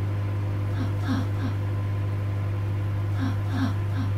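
Steady low hum of a running microwave oven. Small clusters of short, falling squeaks come about every two seconds over it.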